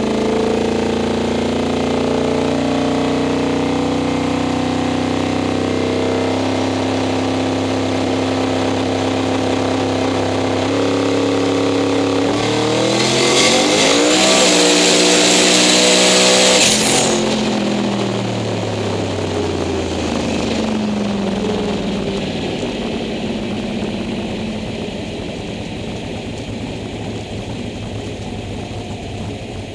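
Twin-turbo V8 drag race car engine held at a steady raised speed for about twelve seconds. It then launches into a drag strip pass, its revs climbing fast under a loud hiss. About seventeen seconds in the sound cuts off sharply, and the engine winds down as the car slows.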